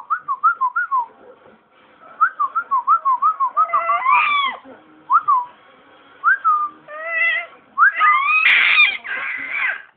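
Baby making shrill, whistle-like squeals: quick runs of short chirps that rise and fall, then longer, louder screeching squeals, the loudest near the end.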